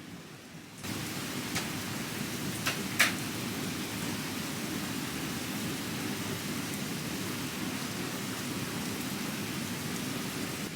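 Steady rain falling, which gets suddenly louder just under a second in. Three sharp ticks sound a second or two later, the last the loudest.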